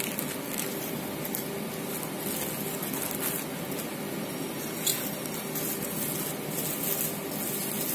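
Plastic crinkling and rustling as a bubble-wrapped phone box is drawn out of a plastic courier bag and handled, with scattered sharper crackles over a steady room hiss.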